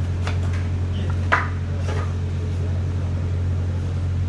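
Electric motor of a woodworking saw running steadily with no load, a constant low hum, with a few light clicks and one sharp knock about a second and a half in.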